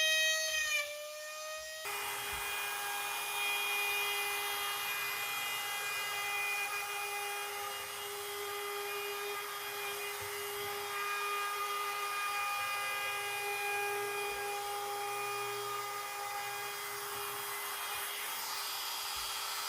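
High-speed router spindle running with a steady whine over cutting noise. Its pitch changes abruptly about two seconds in and then holds steady.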